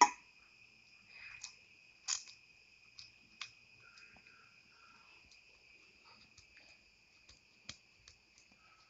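Oiled hands working soft rice-flour dough in a steel bowl and rolling it into balls: scattered soft taps and clicks, the loudest right at the start and another about two seconds in. A steady high-pitched trill runs underneath.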